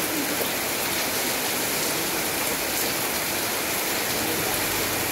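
Steady heavy rain falling on tarpaulin awnings and a wet paved lane, with runoff pouring from the tarp edges.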